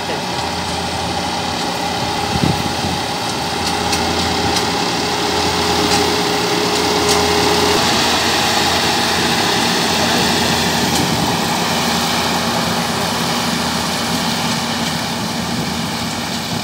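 Combine harvester's engine and machinery running steadily, a dense mechanical noise that grows a little louder through the middle.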